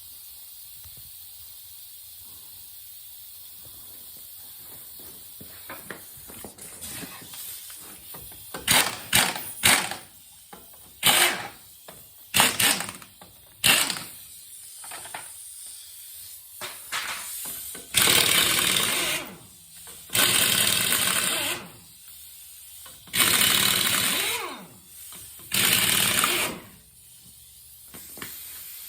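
Pneumatic impact wrench run in a few short bursts, then four longer bursts of about a second and a half each, loosening a car wheel's lug nuts.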